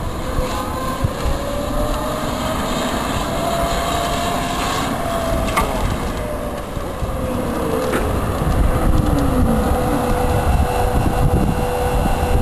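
Element One go-kart's motor whining as it drives around the lot, the pitch rising and then falling as it comes back in. Wind rumbles on the microphone underneath.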